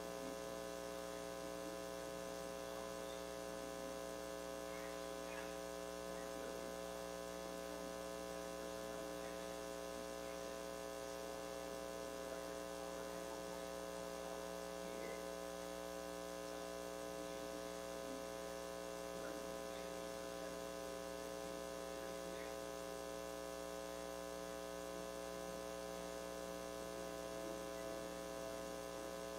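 Steady electrical mains hum with a buzzy stack of overtones, unchanging in level throughout.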